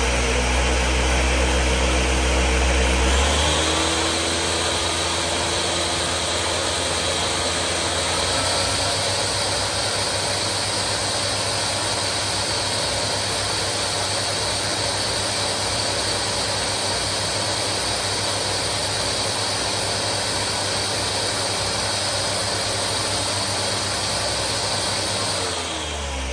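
Countertop blender motor running its timed puree program on a jug of blended fruit and juice. It steps up in speed about three seconds in, runs steadily at high speed, and spins down near the end as the program finishes.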